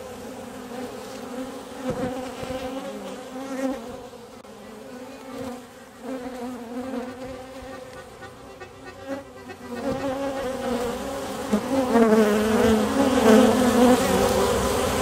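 Many honey bees buzzing together at the hive entrance: a steady, wavering hum that grows louder over the last few seconds.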